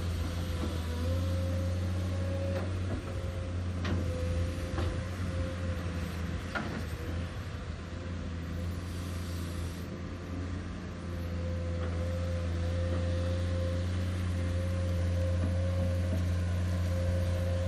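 Komatsu PC210 hydraulic excavator's six-cylinder diesel engine running steadily under load, with a steady whine over its low hum and a few sharp knocks as the bucket digs into stony soil. About eleven seconds in, the engine note grows heavier as the loaded bucket is lifted.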